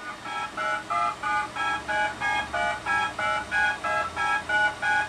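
DTMF touch-tone data played back from an 8-track tape through an old 8-track stereo's speaker: a quick, even series of short two-tone beeps, about three a second. The left and right stereo tracks each carry a different DTMF code, the drive's way of encoding data on the tape.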